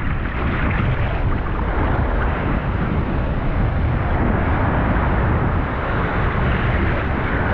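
Surf breaking and churning right around a microphone held at the water's surface, mixed with wind buffeting the microphone: a steady, heavy rushing noise with a strong low rumble.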